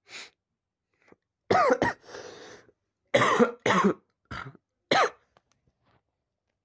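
A person coughing in a fit: two harsh coughs about a second and a half in, a quieter breath, then four more coughs, the last about five seconds in.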